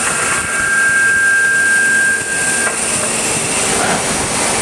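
Kitako MT4-200 II four-spindle CNC lathe running with a steady hiss and a high, even whine that sets in about half a second in and stops a little past halfway.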